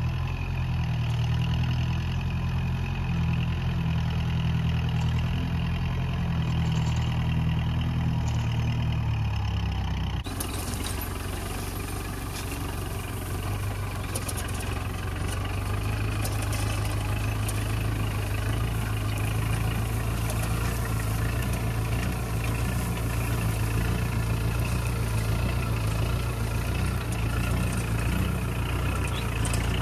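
Tractor diesel engine running steadily while pulling a seed drill through a field during sowing. About ten seconds in, the sound cuts to a closer one, brighter and noisier, with small clicks over the engine.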